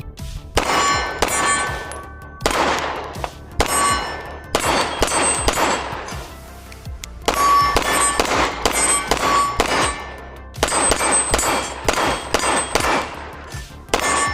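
A string of 9mm shots from a Great Lakes Firearms Synergy DS 9 (a 2011-pattern pistol), fired as a magazine is run through it. There are about fifteen shots at an uneven pace, some in quick pairs, and each one is followed by a metallic ringing clang.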